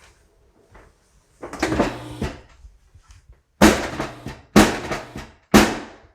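Drum hits: a short drum burst, then three heavy strikes about a second apart, each ringing out briefly.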